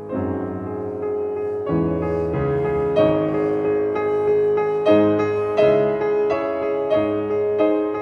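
Slow background piano music: single melody notes struck about once a second over a held chord.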